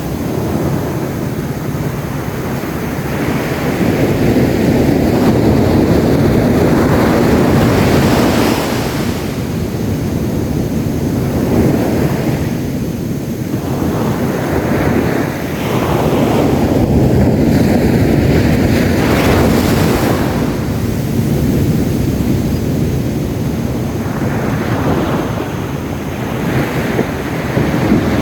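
Sea waves breaking on a sandy beach, the surf swelling and falling every few seconds, with strong wind rumbling on the microphone.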